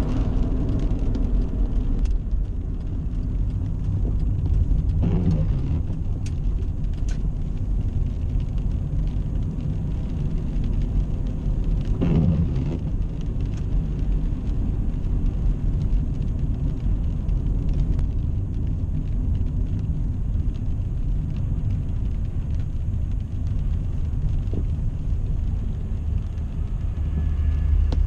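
Road noise inside a moving car: a steady low rumble of engine and tyres on wet pavement. Twice, about five and twelve seconds in, a brief louder swell sounds, like a vehicle passing.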